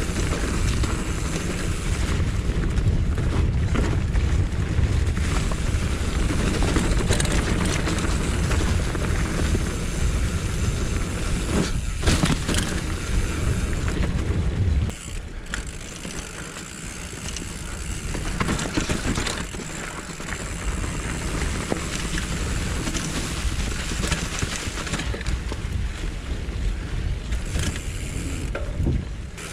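Mountain bike ridden along a dirt forest trail, heard from a GoPro on the rider or bike: tyre and drivetrain rattle under a heavy low rumble. The rumble drops sharply about halfway through, and there are a few sharp knocks.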